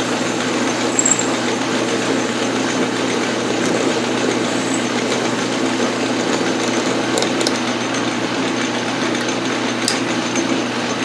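Metal lathe running steadily while a parting tool, fed in by hand on the cross-slide, cuts off the turned arbor. A few brief sharp clicks in the second half.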